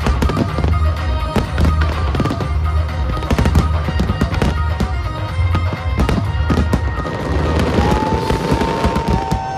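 Dense barrage of aerial fireworks shells bursting and crackling over loud music with a heavy pulsing bass beat. A long held note sounds in the music near the end.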